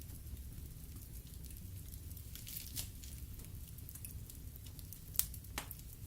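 Wood fire burning in a fireplace: a steady low rumble of flames with irregular sharp crackles and pops from the logs, the loudest two pops about five seconds in.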